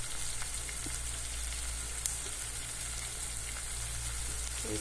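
Onion and tomato masala sizzling in oil in a saucepan on the stove: a steady frying hiss with small scattered crackles, over a low steady hum.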